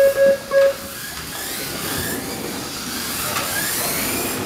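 Three short electronic beeps about a third of a second apart, then the high whine of Mini-Z radio-controlled cars' small electric motors rising and falling as they lap the carpet track.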